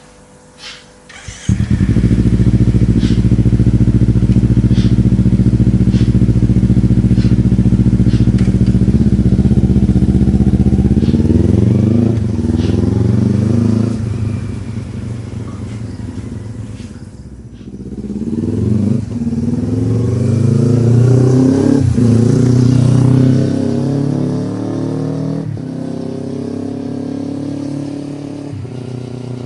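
Kawasaki Ninja 300's parallel-twin engine through a ZARD full exhaust with the silencer removed, starting up with a sudden loud catch about a second and a half in. It runs steadily at a raised idle, then rises and falls in pitch a couple of times before settling to a lower, steadier note near the end.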